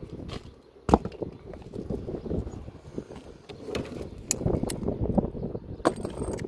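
Irregular rumble of wind buffeting the microphone, with a few scattered sharp clicks and knocks; the loudest knock comes about a second in.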